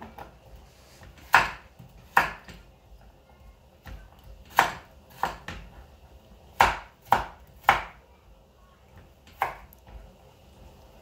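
Kitchen knife chopping carrots on a wooden cutting board: about eight sharp, unevenly spaced knocks of the blade striking the board, some in quick pairs or threes.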